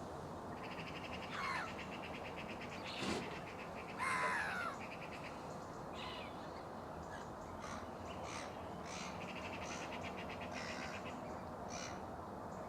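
Crow-like birds calling outdoors: harsh caws that fall in pitch, the loudest about four seconds in, with stretches of fast rattling chatter in between.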